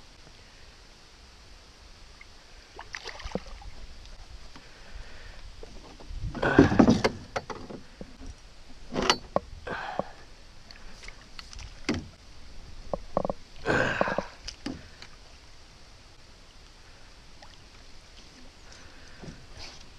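Irregular splashes and knocks against a small boat's hull as a hooked fish thrashes at the surface beside it and is brought to the landing net. The loudest splash comes about six seconds in, with a cluster of shorter ones over the next several seconds.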